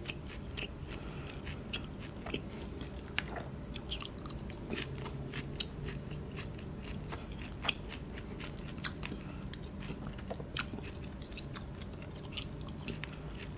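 Close-up chewing of roast lamb leg meat, heard as many small, irregular mouth clicks over a low steady hum.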